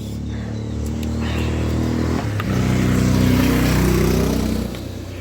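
A motor vehicle engine passes close by. It grows louder to a peak a little past the middle, with a shift in pitch partway through, then fades near the end.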